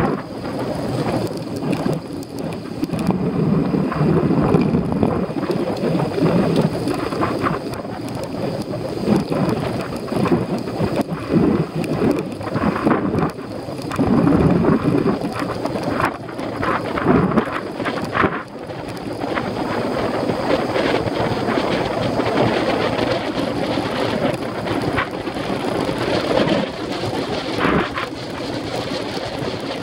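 Wind buffeting the microphone of a bicycle-mounted action camera while riding in the rain, mixed with the hiss of tyres on a wet lane and frequent knocks and rattles from the bike on the rough surface.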